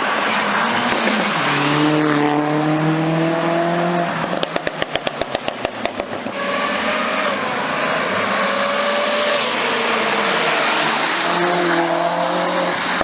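Car engine revving hard and holding high revs over a steady hiss. About four seconds in, a rapid string of sharp cracks, about eight a second, runs for a second and a half before the engine picks up revving again.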